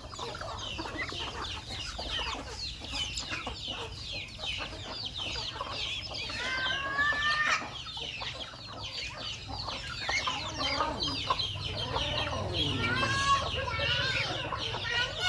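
A flock of poultry clucking and peeping, with many overlapping short high calls. A longer, louder call stands out about seven seconds in and again around thirteen seconds.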